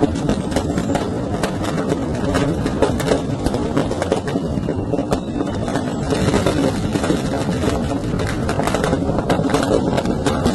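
Firecrackers going off in a burning shop: dense, irregular crackling and sharp pops, many a second, over a steady low noise.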